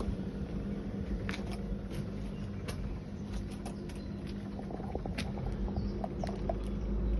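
Defy dishwasher running: a steady electric motor hum with a light pattering and a scattering of small clicks and ticks.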